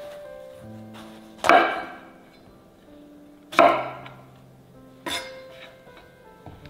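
Kitchen knife chopping through a long eggplant onto a wooden cutting board: three sharp chops, over soft background music.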